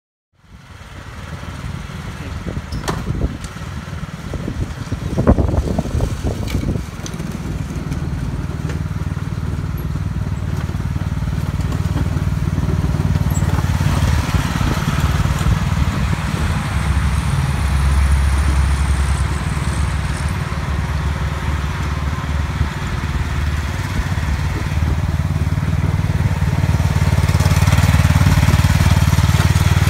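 Cub Cadet XT1 lawn tractor engine running steadily, growing somewhat louder toward the end. A few knocks come in the first several seconds.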